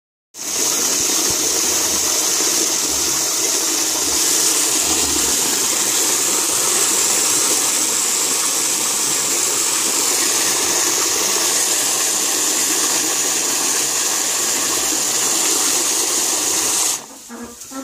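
Steady rush of water running into a container while it is filled, shut off suddenly near the end.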